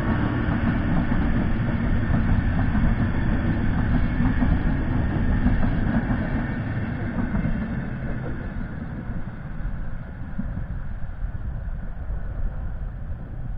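Passenger coaches of an express train rolling past on the rails: a steady wheel-and-track rumble that slowly fades as the train draws away.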